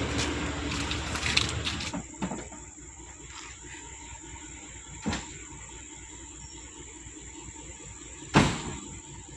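Volvo excavator's diesel engine running, which cuts off abruptly about two seconds in. A quiet background follows with three separate sharp knocks; the loudest comes near the end.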